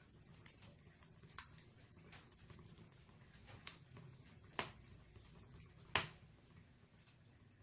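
Burning firewood crackling in a fireplace: scattered sharp pops and snaps at irregular intervals, the loudest about six seconds in.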